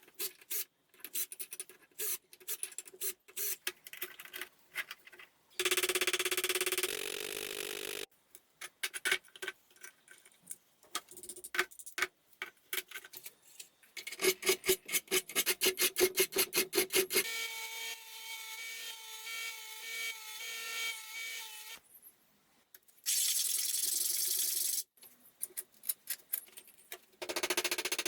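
Quick runs of hand scrubbing and scraping strokes on metal, as rust is worked off a padlock. Two stretches of steady hiss and a pitched, wavering sound break in partway through.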